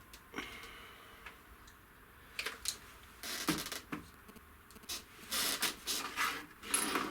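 Handling noises while an inspection endoscope camera is set up with a phone: scattered clicks, taps and rustling, sparse at first and busier from about halfway through.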